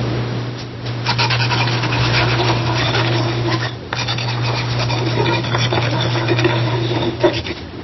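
Pencil writing on paper on a wooden desk: quick, dense scratching strokes of the lead, with a brief pause about halfway through, over a steady low hum.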